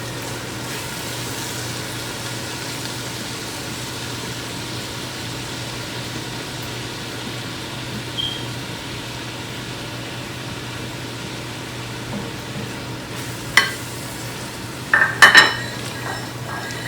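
Onion, tomato and spice masala sizzling steadily as it fries in oil in a pot. Near the end a spoon knocks sharply against the pot a few times while it is stirred.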